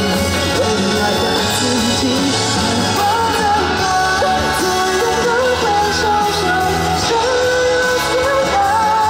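Pop-rock song with a singer holding long, bending notes over a full band.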